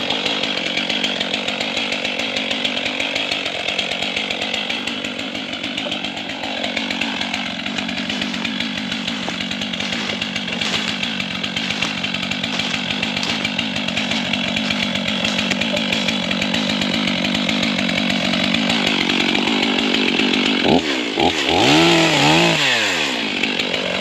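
Chainsaw running steadily as it cuts through a white oak log, its pitch swinging up and down a few times near the end.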